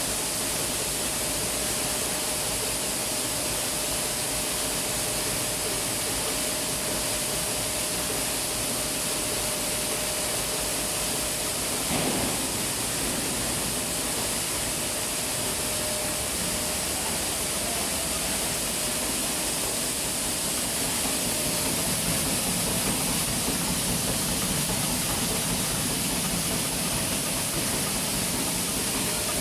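Rice milling plant machinery running steadily: an even hiss with a steady hum. There is a single knock about twelve seconds in, and the lower rumble grows a little louder past the two-thirds mark.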